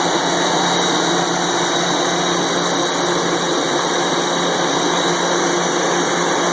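Ingersoll Rand SSR XF150 rotary screw air compressor running, a loud steady machine drone with a constant high whine over it.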